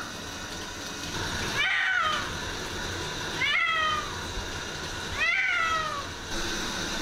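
Wet Persian cat giving three loud, drawn-out meows, its war cries at being bathed. Each call rises and then falls in pitch, with a steady hiss behind them.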